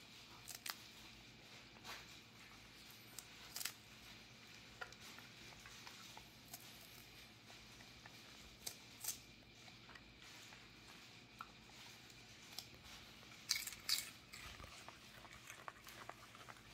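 Jindo dog nibbling and chewing a lettuce leaf: faint, irregular crisp crunches and tearing sounds, the loudest pair about three-quarters of the way through.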